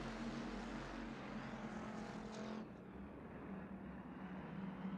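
A pack of IMCA Hobby Stock race cars running at speed on the green-flag restart, their V8 engines making a steady drone. A little past halfway the higher, brighter part of the sound drops away suddenly, leaving a duller engine drone.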